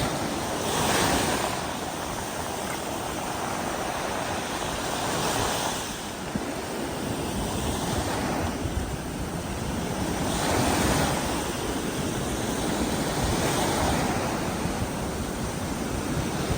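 Ocean surf breaking and washing up a beach, the rush of water swelling about every four to five seconds.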